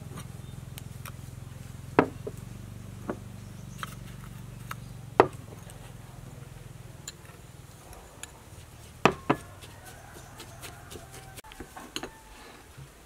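Sharp clicks and taps of kitchen utensils against small ceramic bowls as seasonings are added to chopped garlic; the loudest is a quick pair about nine seconds in. A low steady hum runs underneath and stops near the end.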